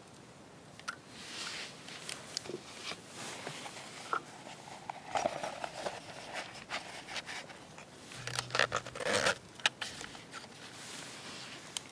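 Light metallic clicks, scrapes and rustles of a small metal camping pot being handled, its wire bail handle clinking against the rim, with the busiest, loudest run of knocks a little after the middle.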